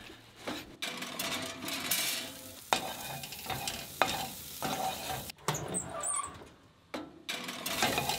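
Wooden spoon stirring and scraping slices of sausage around a hot frying pan, the food sizzling as it fries, with repeated short knocks of the spoon against the pan.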